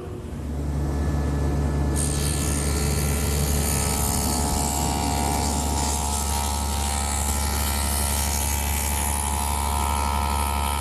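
Table saw with a stacked dado head cutter running with a steady low hum; about two seconds in, a louder hiss joins as the cutter cuts a dado across a pine board, holding steady throughout.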